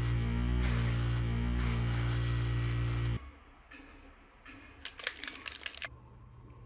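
Gravity-feed airbrush spraying with a loud hiss that starts and stops in bursts, over background music; about three seconds in both stop abruptly. A short run of small clicks and rattles follows about two seconds later.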